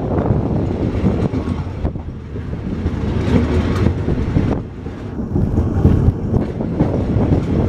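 Express passenger train passing close by, its wheels running and clattering on the track in a continuous loud rumble that dips briefly partway through.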